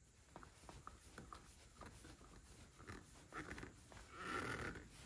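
Faint hand-handling noises as a spin-on oil filter is threaded back onto a tractor engine by hand: scattered light clicks and taps, with a brief louder scraping noise about four seconds in.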